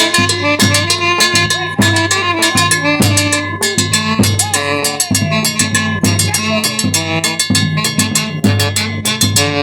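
Live band music: a drum kit keeping a steady beat with bass drum and snare over bass and other pitched instruments.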